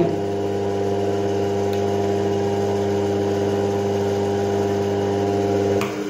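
Washing-machine universal motor running as a self-excited generator, a steady, even-pitched electrical hum that drops away near the end.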